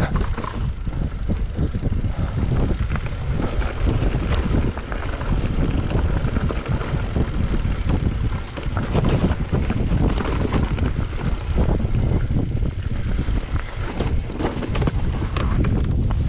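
Mountain bike riding over a rough trail: a steady low rumble of wind on the microphone, with frequent short knocks and rattles from the tyres and bike.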